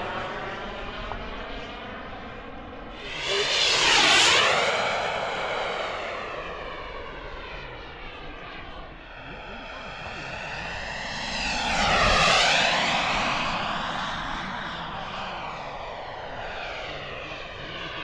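Kingtech K45G4+ model jet turbine in an E-flite Viper RC jet, heard in flight. The turbine whine swells loudly as the jet passes close, about 4 seconds and again about 12 seconds in, and fades between passes. Wind rumbles on the microphone underneath.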